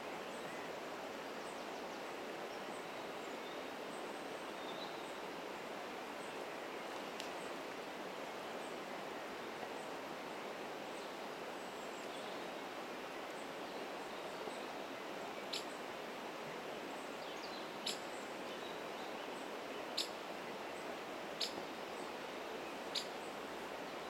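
Steady rush of a shallow river running over a stony bed, heard while wading in it. In the second half come short, sharp, high ticks, about one every second and a half.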